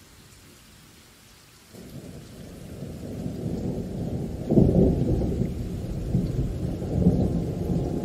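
Thunder rolling over rain. Faint rain at first, then a low rumble builds about two seconds in, peaks in a loud clap about halfway through, and rolls on.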